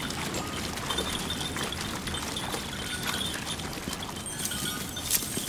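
A herd of reindeer moving at a run, many hooves clattering irregularly over stones and through shallow water.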